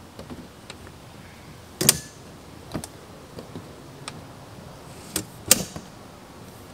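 Scattered sharp knocks and clicks, with two loud ones about two seconds in and about five and a half seconds in.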